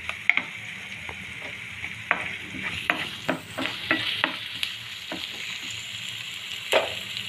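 Chopped onion and ginger-garlic paste sizzling in oil in a frying pan, with a spatula scraping and tapping against the pan as it is stirred. The sharpest tap comes near the end.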